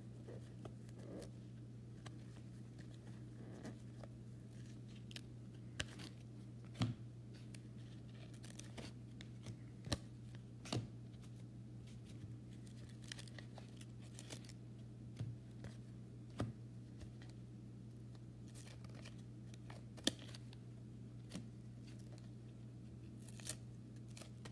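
A stack of trading cards being flipped through by hand: faint, irregular flicks and snaps of card stock every second or two. A steady low hum runs underneath.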